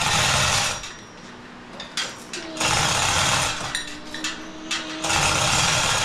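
Power wrench run in three bursts of about a second each, backing out the bolts on a 1939 Ford transmission's top cover.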